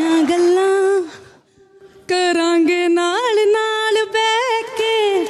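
A woman singing slow, held notes with no accompaniment. About a second in she breaks off for roughly a second, then sings on.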